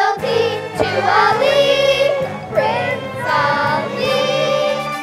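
Children's choir singing with instrumental accompaniment, holding long notes.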